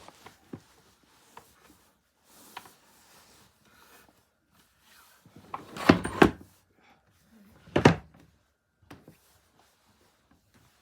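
Scattered knocks and thumps, like a door or drawer being handled. The loudest is a cluster of sharp knocks about six seconds in, with another about eight seconds in.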